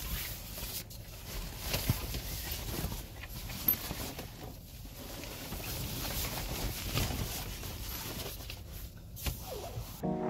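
Rustling and scattered light knocks of handling inside a minivan, with a steady hiss under them, while gear and a fabric window cover are put in place.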